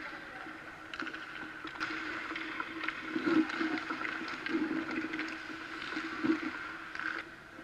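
Ice hockey goalie's skate blades and leg pads scraping across the ice during lateral movement drills, a scrape every second or so. A few light clicks come in the first couple of seconds, over a steady hum.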